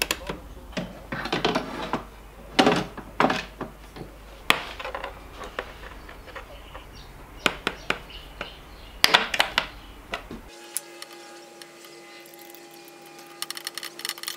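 Hand tools working on battery cable connections: clicks, knocks and short rasps of a socket wrench and side cutters on terminals and wire. About two-thirds of the way through, the low hum stops and quiet background music with held notes comes in, with a run of rapid clicks near the end.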